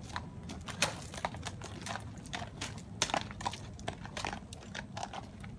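A horse walking on gravel, its hooves crunching irregularly on the stones.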